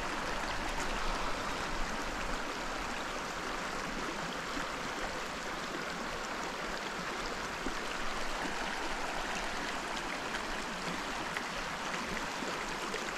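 A small trout stream flowing, a steady even rush of running water.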